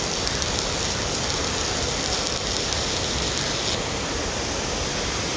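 Stick (SMAW) welding arc on carbon-steel pipe, a steady crackling sizzle. The sharpest crackle drops away about three and a half seconds in as the arc is broken, leaving a steady hiss.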